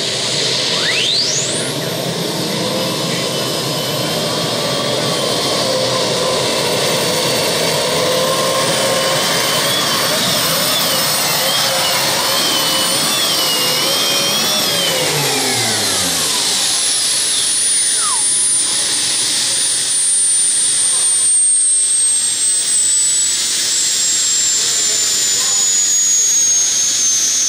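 Modified pulling tractor running at full power under load, its pitch wavering as the revs rise and fall. About fifteen seconds in it cuts power with a falling note, and a high whistle keeps falling slowly as the engine winds down.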